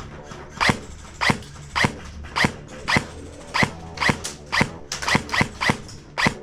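Airsoft gun firing single shots, each a sharp snap, at first about every half second and then faster, around four a second, after the midpoint.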